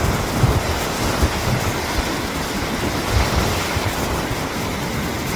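Strong wind buffeting the microphone in irregular low rumbles, over a steady wash of sea surf.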